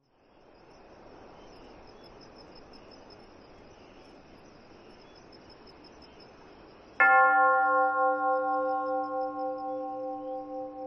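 A single bell-like tone, struck suddenly about seven seconds in and ringing on as it slowly fades, over a faint steady hiss with a high, faintly pulsing tone.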